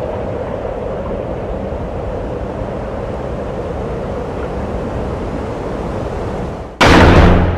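Steady rushing, wind-like noise at an even level. Near the end it cuts out and a loud music track with booming drum hits starts abruptly.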